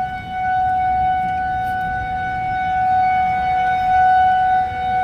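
Outdoor tornado warning siren sounding a steady, unbroken tone, its loudness swelling and easing slightly.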